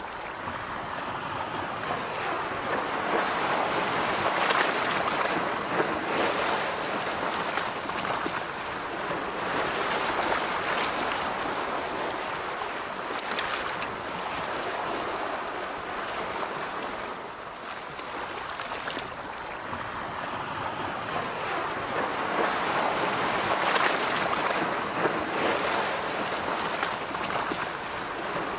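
Ocean surf on a beach: waves breaking and washing in, the rush swelling and easing every several seconds.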